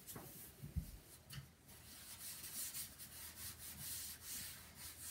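Paper towel wiping the plastic base of a CRT monitor stand: a faint rubbing swish in uneven strokes, with one low knock about a second in.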